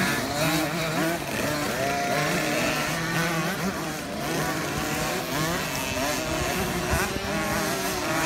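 Several 50cc two-stroke motocross bikes buzzing round a dirt track, their engines overlapping and rising and falling in pitch as the riders throttle on and off.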